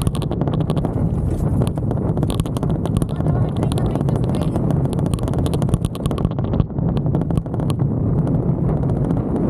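Handlebar-mounted Insta360 action camera rattling in a loose mount as the mountain bike rides over rough dirt and grass: a dense clatter of small knocks over a steady low rumble.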